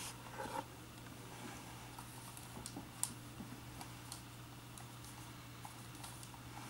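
Faint, scattered clicks and taps, a few of them spread over several seconds, over a low steady hum.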